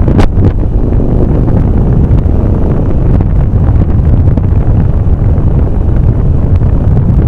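Loud, steady wind buffeting on the microphone of a camera travelling on a moving vehicle, a dense low rumble with no engine note standing out, and a brief knock just after the start.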